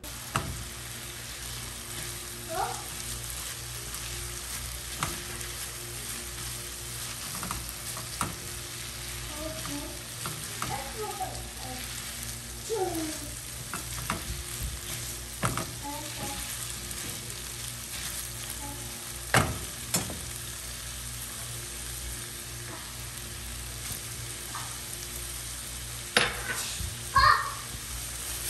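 Marinated chicken and onion sizzling steadily in a stone-coated nonstick frying pan as the chicken's released water cooks off. A silicone spatula stirring through it clacks and knocks against the pan now and then, loudest twice past the middle and a couple of times near the end.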